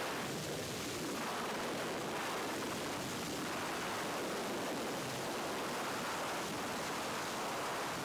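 Steady rushing wind of freefall blasting across a helmet-mounted camera's microphone, an even roar with no break.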